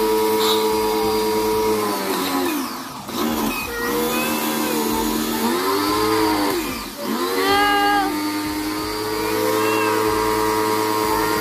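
Black+Decker electric pressure washer running with a steady motor whine over the hiss of water spraying from the wand. Twice the whine dips in pitch and swings back up before settling steady again.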